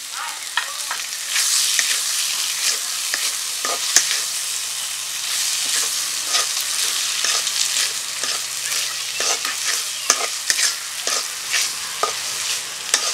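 Taki fish vaja frying in oil with a steady sizzle in a black iron karahi, stirred and scraped with a metal spatula. Irregular clinks and scrapes of metal on iron sound over the sizzle, coming more often near the end.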